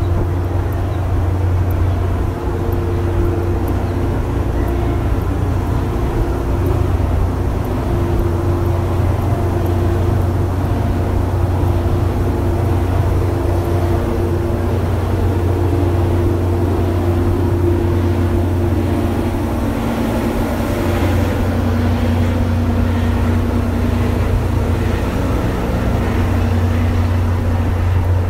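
Diesel train idling, a steady low engine hum with a few held tones above it that change slightly about twenty seconds in.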